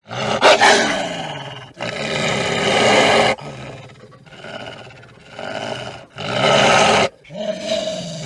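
A large animal roaring and growling: several loud, rough calls in a row, each ending in an abrupt cut.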